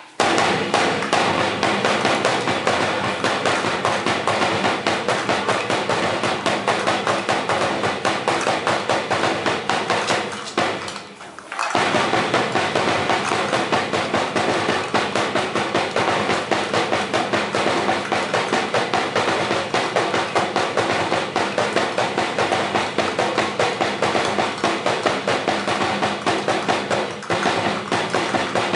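Percussion drumming for a Sinulog street dance: a fast, steady beat of sharp hits, with a brief pause about ten seconds in before it picks up again.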